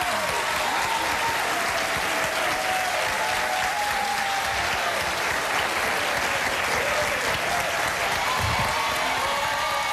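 Studio audience applauding in a standing ovation: dense, steady clapping with cheering voices and whoops over it.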